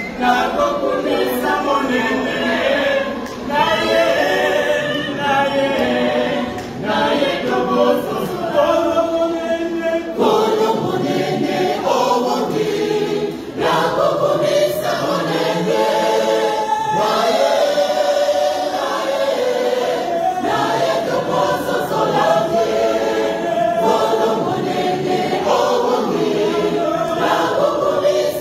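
A church choir singing a gospel song, many voices together.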